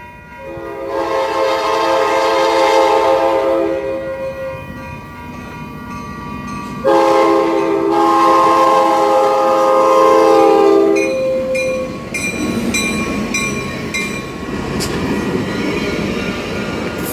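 Coaster commuter train's locomotive sounding two long chord blasts on its horn as it approaches the grade crossing. The train then rumbles past on the rails while the crossing bell rings about twice a second.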